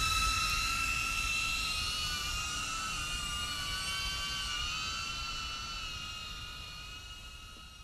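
DJI Avata quadcopter's propellers whining: several close, steady high tones that drift apart and back together as the motor speeds vary. The sound fades away gradually.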